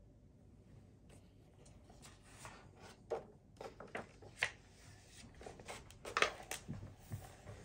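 Pages of a hardcover picture book turned by hand: a series of short paper rustles and swishes with soft knocks of the pages and cover, beginning about two seconds in, three of them sharper than the rest.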